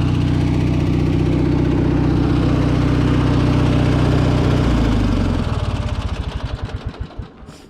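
Craftsman LT1000 lawn tractor's 19.5 hp Briggs & Stratton engine idling steadily without choke. About five seconds in it is switched off and coasts down, its pulses slowing and fading to a stop.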